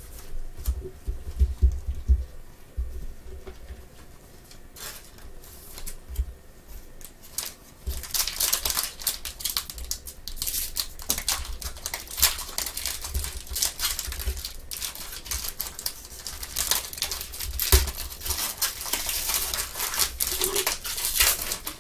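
A trading-card pack's foil wrapper being torn open and crinkled in gloved hands. Soft bumps of cards being handled at first, then from about eight seconds in, continuous crinkling and tearing of the wrapper.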